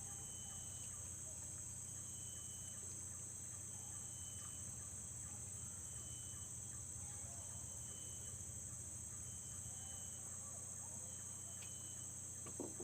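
Steady high-pitched insect chorus, with a short higher note repeating every second or two and a low steady hum beneath; a single soft knock near the end.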